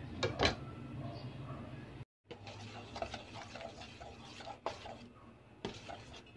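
A metal spoon stirring chopped garlic into a soy-sauce marinade in a stainless steel bowl, with a couple of sharp clinks against the bowl about half a second in and scattered scrapes and knocks after. The sound cuts out briefly about two seconds in.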